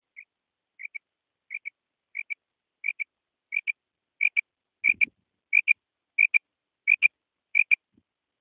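Female common quail calling: a repeated two-note 'krik-krik', about twelve pairs at roughly one and a half a second. The call grows louder over the first few seconds.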